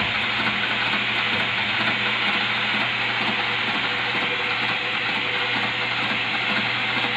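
Metal lathe turning a square metal block in its chuck, the tool cutting the spinning workpiece: a steady cutting hiss over the steady hum of the machine.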